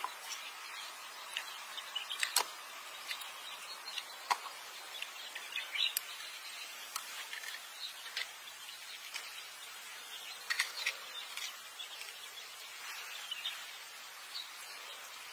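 Faint steady outdoor hiss with scattered small clicks and taps as a small paper cup and a thin wooden stick are handled, a few sharper ticks standing out.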